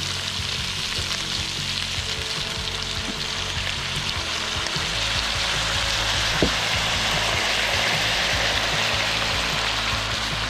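Pork ribs sizzling in a hot pan with freshly added soy sauce: a steady frying hiss that grows a little louder past the middle, with one light tap a little after halfway.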